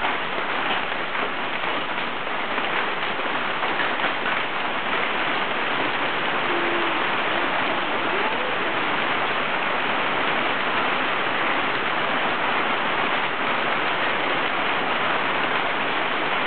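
Hailstorm: a dense, steady patter of hailstones striking the ground and grass, with sharper single ticks standing out in the first few seconds.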